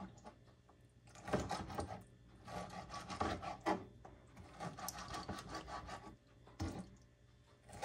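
A kitchen knife sawing through raw meat on a cutting board: several runs of short, scratchy strokes with pauses between them.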